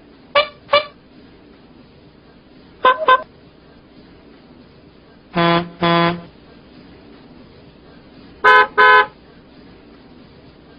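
Bus "telolet" musical air horn sounding in four pairs of short toots, each pair at a different pitch. The third pair is lower and longer, and the last pair is the loudest.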